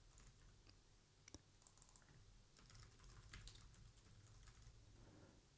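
Faint typing on a computer keyboard: irregular, soft key clicks.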